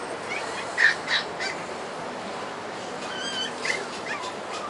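Puppies yipping and whining in short high-pitched calls, a few in the first second and a cluster about three seconds in, over steady background noise.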